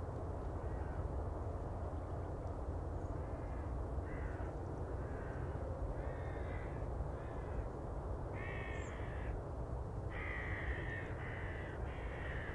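Crows cawing again and again, about ten harsh calls, faint at first and louder and more frequent from about four seconds in, over a steady low rumble.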